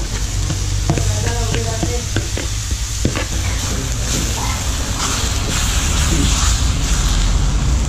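Chopped vegetables frying in a hot oiled wok: a metal ladle clinks and scrapes against the iron pan, and the sizzling hiss grows louder in the second half as they are stirred. A low steady rumble runs underneath.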